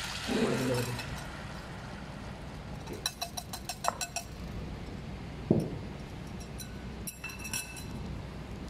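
Metal wire whisk clinking and scraping against a ceramic bowl as sauce is scraped out into a saucepan: a quick run of light taps about three seconds in, a single thump a little later, and a few ringing clinks near the end.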